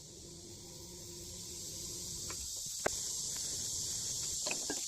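Steady high-pitched chorus of insects, swelling gradually, with a few light sharp knocks in the middle and near the end.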